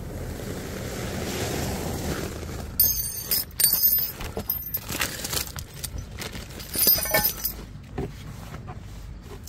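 A rush of steady noise swells over the first couple of seconds, then loose metal parts clink and jangle: a cluster of sharp ringing clinks about three seconds in and another around seven seconds, as tow-ring hardware is handled.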